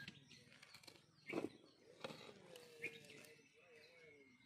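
Quiet: a metal ladle stirring cooked biryani rice in a pot, with a few soft knocks of the ladle against the pot, the loudest about a second and a half in. Faint bird calls sound in the background.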